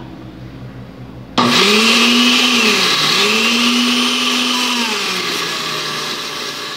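Countertop blender with a glass jar switching on about a second and a half in and grinding whole-wheat cream crackers into crumbs. Its motor note dips briefly once about three seconds in, then runs on steadily.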